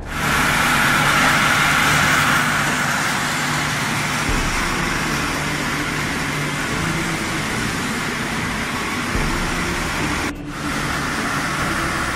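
Steady machinery noise, such as that of a steel-rolling factory: a constant noisy hum with no distinct strokes, dipping briefly about ten seconds in.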